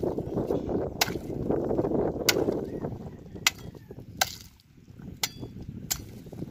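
Bolo knives chopping through a sailfish carcass on a wooden board: about seven sharp strikes, roughly one a second.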